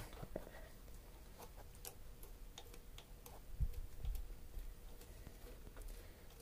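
Faint, irregular light clicks and ticks of hand-tool work on metal hose clamps, with two dull knocks about three and a half and four seconds in.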